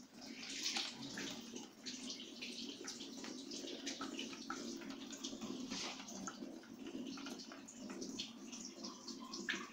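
Faint water trickling and dripping into the trough of a plastic bell-type automatic chicken drinker, fed by a hose from a tap. The trough is filling, and the drinker's weighted valve shuts the flow once it is full.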